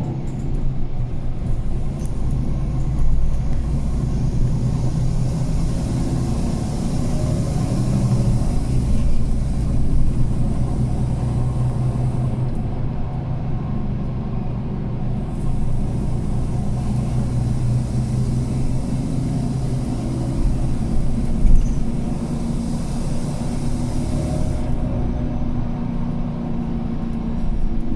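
Mercedes-Benz Citaro C2 G NGT articulated bus driving, heard from inside the cabin. Its Mercedes M 936 G natural-gas engine runs with a steady low hum and road rumble, and a high hiss comes and goes over it. A single thump stands out about two-thirds of the way through.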